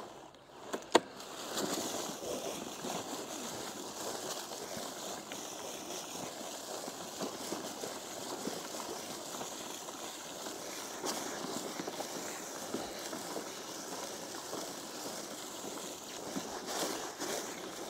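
Walk-behind broadcast spreader pushed across tilled soil: a steady grainy rattle of pellets flung out by its spinning impeller, with the wheels and gears running. Two sharp clicks about a second in.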